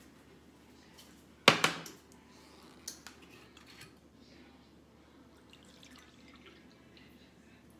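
A sharp clunk about a second and a half in, then a lighter click and faint dribbling as red cooking wine is poured into a bowl of cream-of-chicken and cream-of-celery soup mixture.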